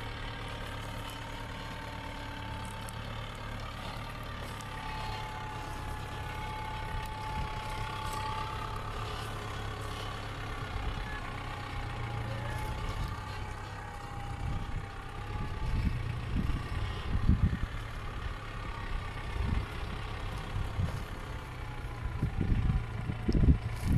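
Farm tractor's diesel engine running steadily as the tractor drives slowly across a field, with a faint wavering whine. From about two-thirds of the way in, wind buffets the microphone in irregular low thumps.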